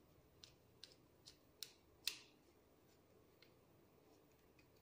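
Faint, sharp clicks of a small screwdriver tightening the screw terminals on a W1209 thermostat board's terminal block. About five ticks come in the first two seconds, the loudest about two seconds in, and one more follows later.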